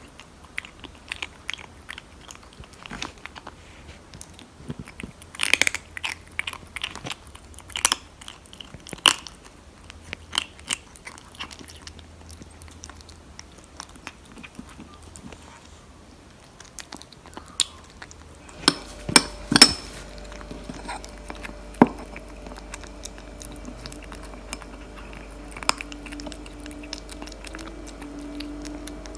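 Tabby kitten crunching and chewing dry cat kibble from a plate in irregular bites, with a cluster of the loudest crunches about two-thirds through. A faint steady hum sits under the later part.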